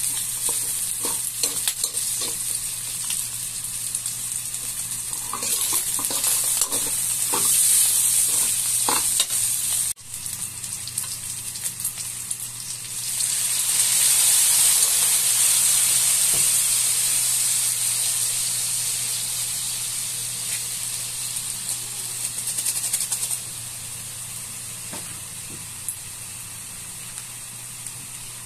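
Chicken and chopped vegetables sizzling in a hot metal wok, with a metal spatula scraping and knocking as it stirs them. About halfway through, the sizzle swells sharply as soy sauce is poured into the hot pan, then slowly dies down.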